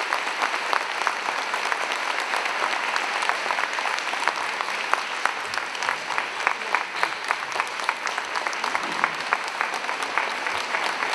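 Audience applauding steadily: many hands clapping at an even, sustained level.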